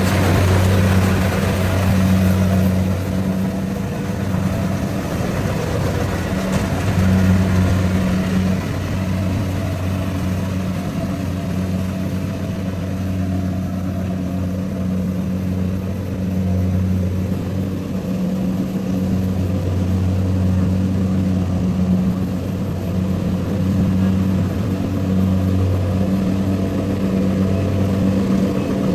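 Rice harvester engine running steadily at working speed, a constant low drone that swells and eases slightly.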